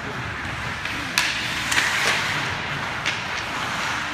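Ice hockey play in an arena: steady scraping of skate blades on the ice, with a few sharp clacks of sticks and puck, about a second in, near two seconds and again near three seconds.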